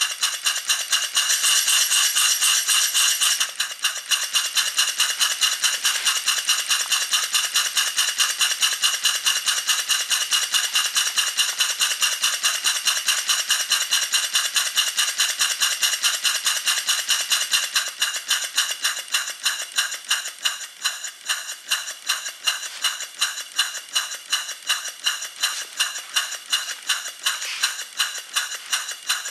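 Live-steam model horizontal engine running on steam, its exhaust chuffing in a rapid, even beat with a hiss of steam. It is loudest at the start, and about eighteen seconds in the beats become quieter and stand out more separately.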